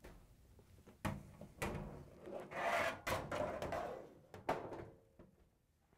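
Metal dryer drum bumping and scraping against the cabinet and the rear drum support rollers as it is set back into a Whirlpool Duet dryer: several knocks, with a longer scrape about halfway through.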